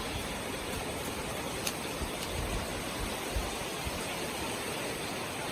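Steady rushing outdoor noise with a few brief low thumps.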